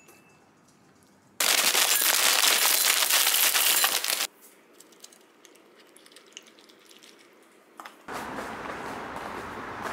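Chocolate cereal flakes poured from a plastic bag into a ceramic bowl: a dense, loud rattle of pieces hitting the bowl and each other for about three seconds, cut off suddenly. About eight seconds in, a steady background noise begins.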